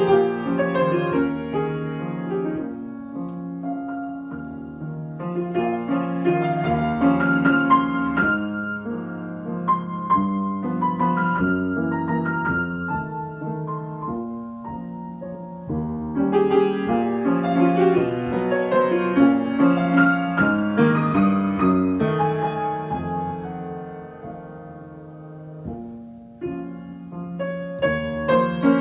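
Solo piano improvisation: chords and melody moving in swelling phrases, dying away to a softer stretch near the end before building again.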